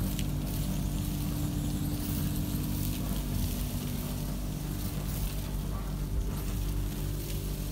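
MULTISPEED insulation blowing and vacuum machine sucking loose-fill insulation through its hose: a steady motor hum under a hissing rush of air and flakes drawn into the nozzle.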